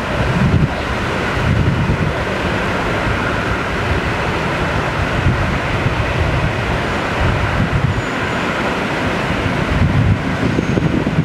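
Twin-engine jet airliner taking off at full thrust: a loud, steady jet roar with a deep rumble as it rolls down the runway and lifts off.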